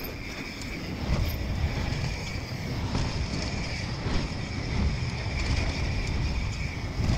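YT Capra carbon mountain bike ridden fast downhill on a leaf-covered dirt trail: tyre roar and wind rumble on the GoPro microphone, with scattered knocks and rattles from the bike over the bumps.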